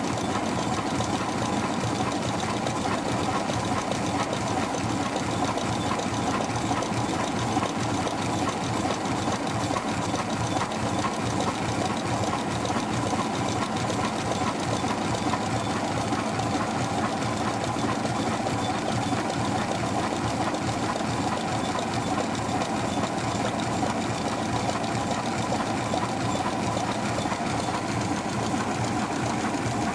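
Electric automatic cigarette tube filling machine running steadily, a fast even mechanical clatter from its turning drum and filling mechanism.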